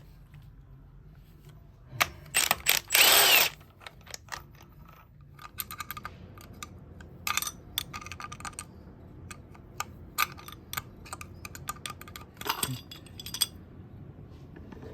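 Metal tools and engine parts clinking, clicking and ratcheting during an engine teardown, with a loud rush of noise lasting about a second and a half starting around two seconds in.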